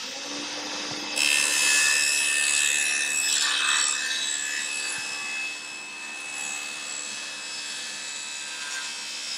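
Table saw with a 210 mm, 36-tooth thin-kerf blade running, then ripping through 12–15 mm plywood. The blade enters the sheet about a second in. The cutting noise is loudest over the next few seconds, then carries on quieter with the motor's steady hum underneath.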